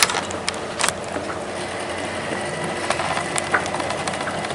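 A boat's engine running steadily, with a few sharp clicks and knocks, one right at the start and another just under a second in.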